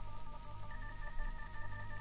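Heavy rock instrumental passage played from a vinyl record: organ holding sustained chords that shift in steps over a steady low bass.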